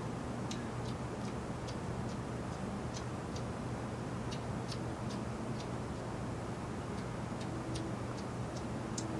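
Cat eating grilled cheese off a paper plate: small, irregular wet clicks of chewing and licking, over a steady low hum.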